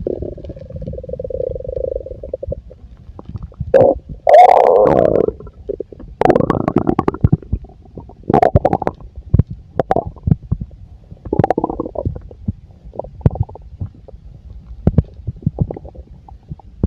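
A full stomach gurgling and rumbling. A long steady gurgle at the start is followed by several loud gurgles about four, six and eight seconds in, with many small pops and crackles between them.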